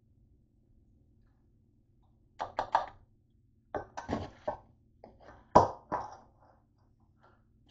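Metal kitchen tongs clacking and scraping against a stainless steel mixing bowl as a chicken salad is tossed, in three short clusters of knocks starting about two seconds in, the loudest near the middle.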